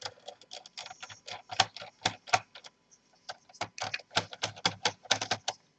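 Irregular light clicks and taps of a screwdriver and fingers on the laptop's plastic case and a small screw, taking out the screw under the keyboard. The clicks come more thickly in the last couple of seconds.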